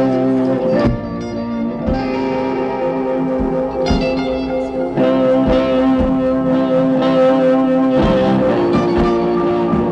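Live electric guitar music: sustained, ringing guitar chords over a regular low thudding beat.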